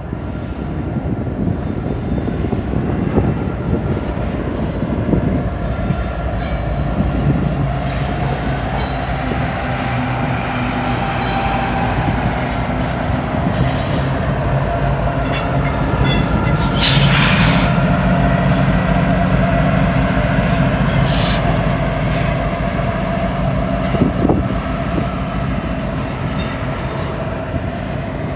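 Union Pacific freight train of autorack and intermodal cars rolling slowly past, a continuous rumble of wheels on rail, with a short high wheel squeal a few seconds past the middle.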